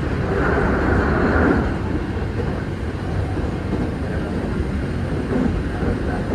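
Train running, heard from inside the carriage: a steady rumble of wheels on rails, with a brief louder hiss in the first two seconds.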